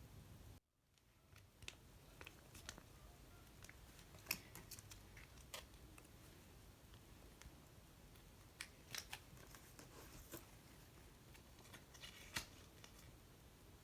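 Faint handling noises: light clicks and taps scattered irregularly over a quiet room, with a brief dropout to silence near the start.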